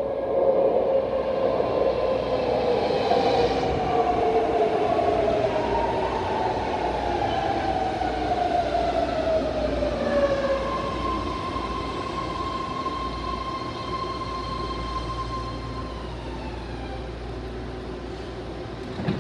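BART train pulling into a station platform and braking to a stop: its propulsion whine slides down in pitch over the first ten seconds as it slows. A steady whine then holds for several seconds and fades out as the train comes to a stand.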